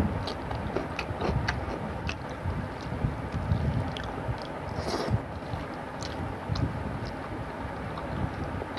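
Close-up chewing and lip-smacking of a person eating rice and fish curry by hand, with crisp crunches from a bitten raw cucumber slice and scattered wet clicks over a steady low rumble.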